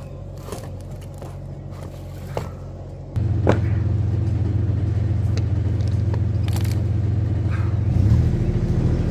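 Bobcat skid-steer loader engine running with a steady hum that jumps much louder about three seconds in and shifts up again near the end. A few short knocks come as rubber paving tiles are stacked onto its bucket.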